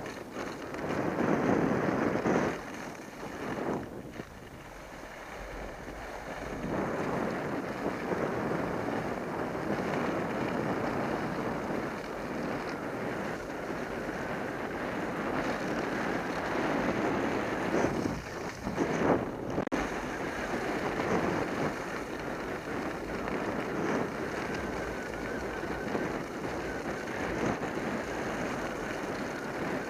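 Wind rushing over an action camera's microphone during a fast ski run, mixed with the hiss and scrape of skis on hard-packed groomed snow. The rushing rises and falls, with a quieter stretch a few seconds in and a louder surge a little past the middle.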